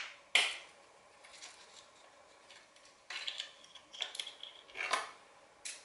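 Sharp metallic clicks and taps from handling and fitting accessories on a compound bow's riser: two near the start, a quiet stretch, then a quick cluster of clicks from about three to five seconds in.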